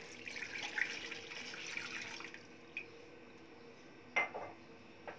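A glass of water poured into a small saucepan holding butter, splashing for about two seconds. About four seconds in comes a sharp knock as the empty glass is set back down on the counter.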